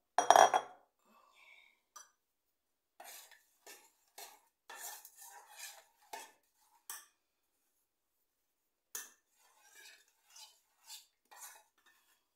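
Kitchen dishes and utensils being handled: a loud knock just after the start, then a string of short clinks and taps, with a pause of about two seconds in the middle.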